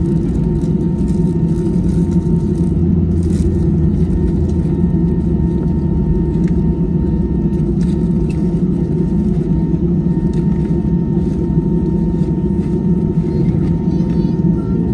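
Passenger jet cabin on the ground after landing: the steady low rumble of the engines at idle, with a faint steady high tone over it.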